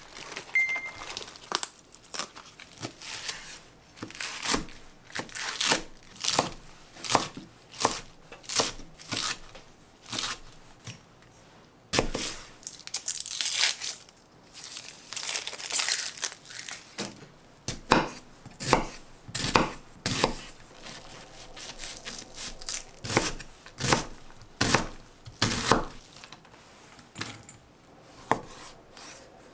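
Close-up kitchen prep sounds: iceberg lettuce leaves being torn off the head and crinkled, then dry onion skin being peeled away in crackling strips, with a chef's knife cutting cherry tomatoes on a wooden chopping board near the end. A long series of short tearing and rustling sounds with brief pauses between them.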